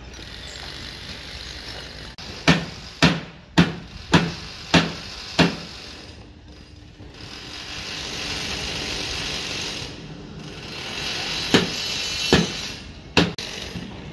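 Hand tools working on steel rebar and formwork: six sharp metallic clicks about 0.6 s apart, then a steady hiss, then three more clicks near the end.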